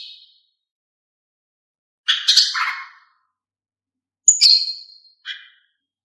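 Female green leafbird (cucak ijo) calling: a raspy call about two seconds in lasting about a second, then a sharper call with a brief whistled tail and a short note after it, with clean silence between calls. These are the female's calls, used to draw male leafbirds into song.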